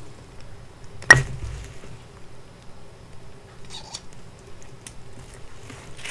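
A copper pocket fountain pen being handled, with one sharp metallic click about a second in and a few faint light clicks and taps later, over a low steady room hum.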